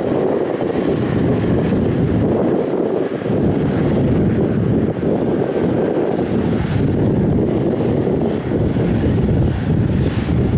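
Airliner engine noise, a steady loud rush, mixed with wind buffeting the microphone.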